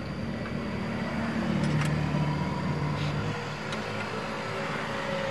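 A vehicle engine running with a steady low hum. A few faint metallic clicks come through it as a ring spanner tightens the hose fitting on the clutch slave cylinder.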